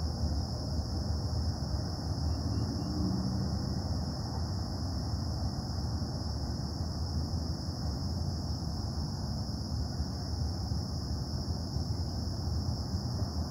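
Steady low industrial rumble and hum from the Casting Solutions plant, with a constant high-pitched hiss above it.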